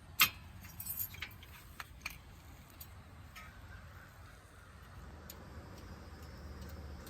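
A sharp metallic clack, then scattered lighter clinks and taps of metal tools or parts being handled during a car brake job, over a steady low hum.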